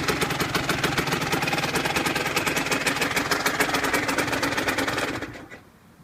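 Aprilia Tuono 125's single-cylinder four-stroke engine idling through an aftermarket Arrow exhaust, with a steady rapid beat of exhaust pulses. The sound dies away about five seconds in.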